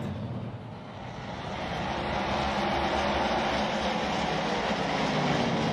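A pack of NASCAR Cup stock cars' V8 engines running at full throttle as the field takes the restart; the engine noise swells over the first few seconds, then holds.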